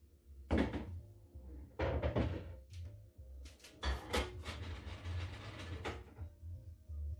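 Pool balls knocking on a pub pool table after a shot, then a potted yellow ball clunking into the middle pocket and rattling as it rolls away inside the table for a couple of seconds.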